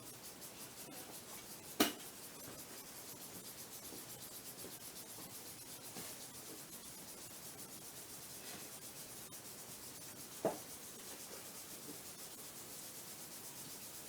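Faint steady hiss broken by two sharp clicks, one about two seconds in and another about ten and a half seconds in.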